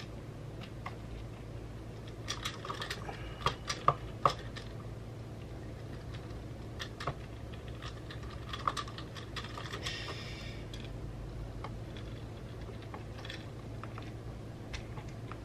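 Small clicks and taps of a Torx screwdriver and small metal parts being handled inside an opened Mac mini. The sharpest clicks bunch together about two to four seconds in, and there is a brief scrape about ten seconds in. A steady low hum runs underneath.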